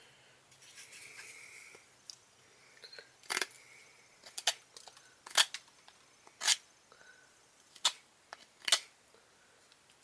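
Small pocket-knife blade scraping and shaving at a chunk of bark, in about seven short strokes roughly a second apart from about three seconds in. The user is testing the edge, which he finds dull.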